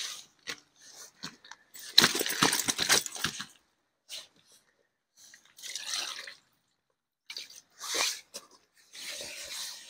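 Rustling, crunching handling noise in irregular bursts, the loudest lasting about a second and a half from about two seconds in, with shorter bursts later.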